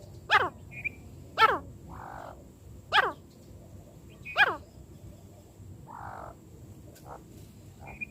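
Francolin calling: four loud, sharp notes, each sweeping steeply down in pitch, about one every second and a half, with a few short higher notes between.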